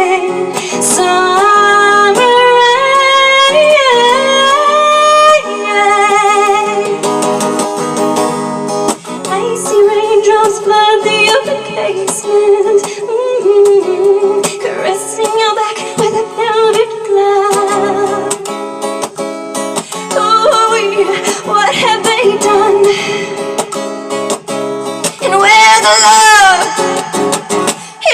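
A song's instrumental break: guitar-led music with a wordless female voice sliding up and down in pitch.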